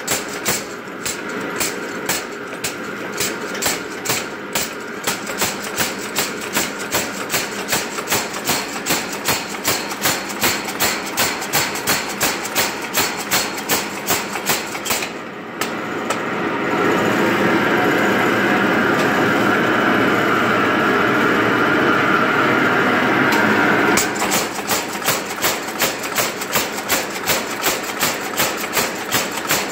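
Mechanical power hammer striking a red-hot high-carbon steel bar in a steady rhythm of roughly three blows a second as the bar is drawn out. About halfway through the blows stop and a steady, louder noise carries on for about eight seconds, then the hammering resumes.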